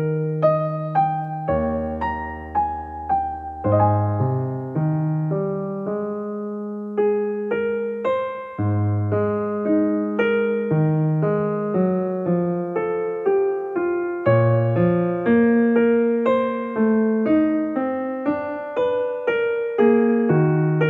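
Solo piano background music: a steady, unbroken run of notes.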